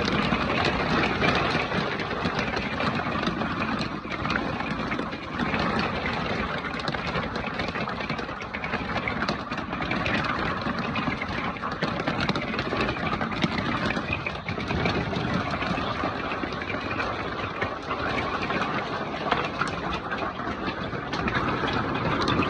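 Large hailstones pounding down in a dense, continuous clatter of hard impacts mixed with a steady roar of falling ice.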